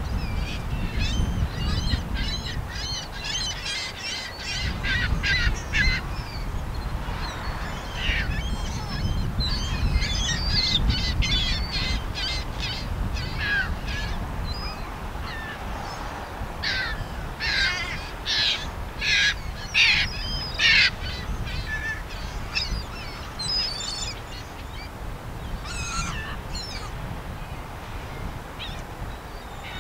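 A flock of birds calling over and over in quick, overlapping bursts, loudest about two-thirds of the way through, over a steady low rumble.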